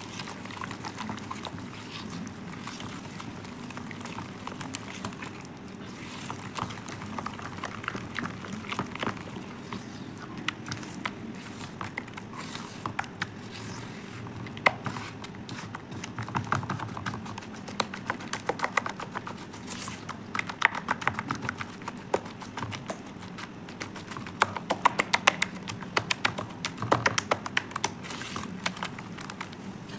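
Hands squeezing and kneading a thick wet paste of Holi colour powder and sand in a steel bowl: sticky squelches with many quick crackling clicks, busier and louder in the second half. A low steady hum runs underneath.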